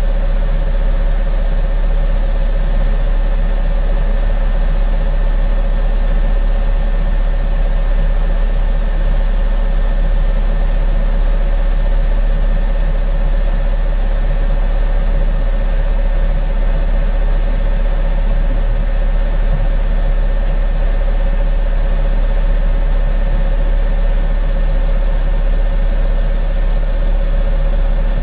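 A heavy vehicle's engine idling steadily: a deep rumble with a constant mid-pitched hum over it.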